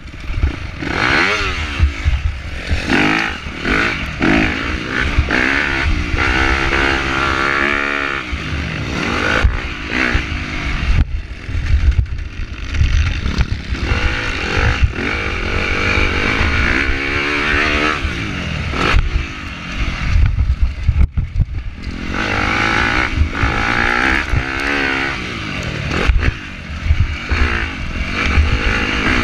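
Motocross dirt bike engine revving hard under load. Its pitch climbs and drops again and again as the rider accelerates, shifts and backs off around the track, over a constant low rumble.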